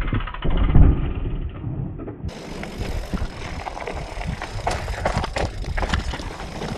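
Mountain bike ridden over a rough dirt and rock trail: tyres rolling and crunching, with knocks and rattles from the bike. The loudest moment is a heavy low thump about a second in as the bike passes close by. After a cut a little past two seconds the sound is brighter, with frequent sharp clicks and rattles as it rides rocky ground.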